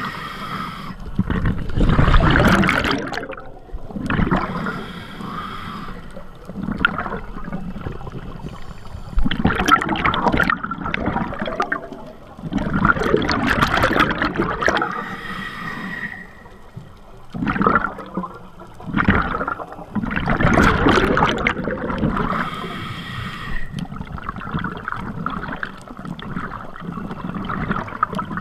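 A scuba diver's regulator breathing heard underwater, muffled through the camera housing: exhaled air bubbles rushing and gurgling in bursts every few seconds, with quieter water noise between.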